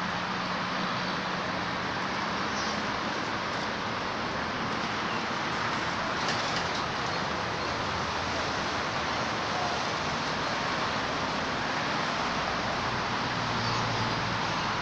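Steady roadside traffic noise with a low engine hum, and a few faint high chirps about three seconds in and again near the end.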